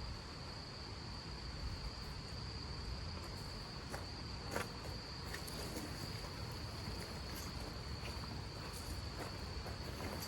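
A cricket trilling in one steady, unbroken high note, over a low rumbling background with scattered light ticks.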